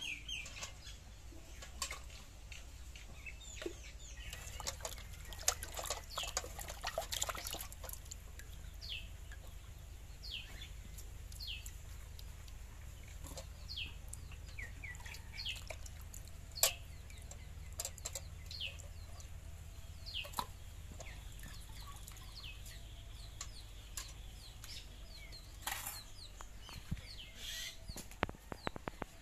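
Birds chirping: short falling chirps repeated about once a second, with scattered clicks and knocks, most of them in the first several seconds, over a low steady hum.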